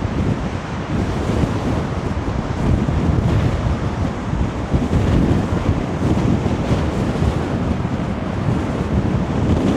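High wind buffeting the microphone in a loud, gusting rumble, over the surge of a rough sea breaking against the sea wall.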